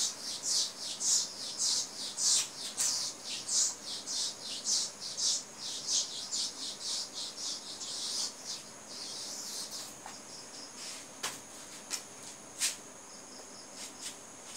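Hand-held whiteboard eraser wiping marker ink off the board in quick back-and-forth strokes, about two a second, for the first eight seconds or so. Then a couple of sharp clicks.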